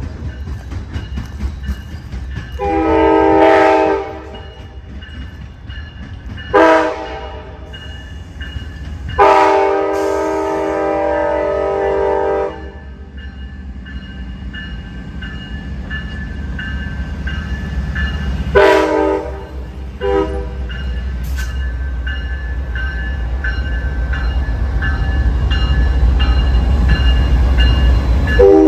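Locomotive horn sounding a series of blasts, some long and some short, as a train passes on the tracks. Under the horn, the train's low rumble grows steadily louder toward the end.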